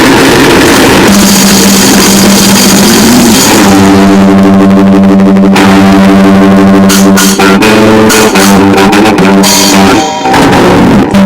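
Noisegrind music: a dense, distorted wall of drums and guitar noise, giving way about three and a half seconds in to a single held, heavily distorted note that breaks into choppy stop-start cuts near the end.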